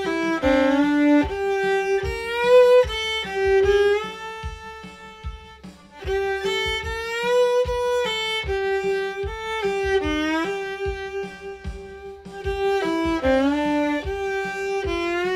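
Solo fiddle bowing a simple bluegrass melody, sliding up into the target note at each chord change.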